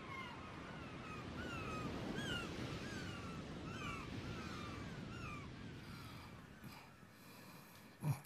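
Gulls calling over a steady wash of surf, short falling cries about two a second that die away after about five seconds. A single sharp thump comes near the end.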